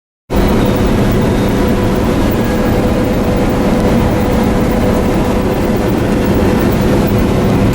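Combine harvester running at work: a loud, steady machine drone with a constant low hum.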